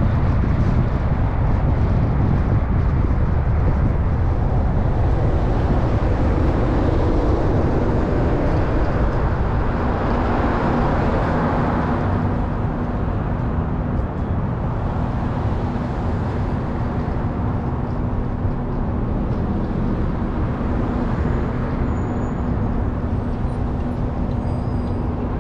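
Car driving on city streets: steady engine and tyre road noise with a low hum and a brief swell of noise about ten seconds in.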